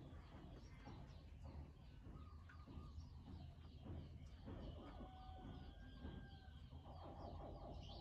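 A faint chorus of short, high, downward chirps from a crowd of hatchling crocodiles, about three a second, over a low rumble.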